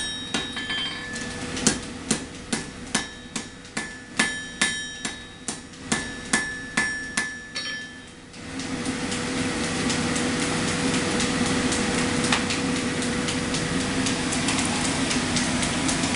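Hammer blows on hot steel at an anvil, a little over two a second with a metallic ring. They stop about eight seconds in, and a steady forge roar takes over as the billet is brought up to welding heat.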